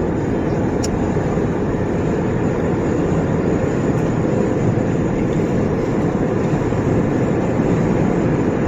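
Steady road and tyre noise inside a car cabin at highway speed: an even, low rumble.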